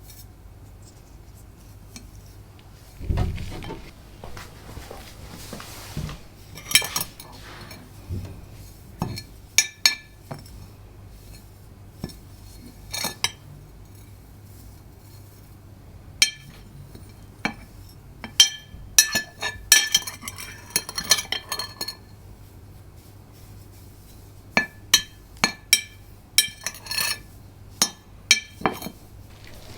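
Hard objects clinking and knocking together: a dull thud, then many sharp clinks, each with a brief ring. The clinks come in clusters, busiest around the middle and again near the end.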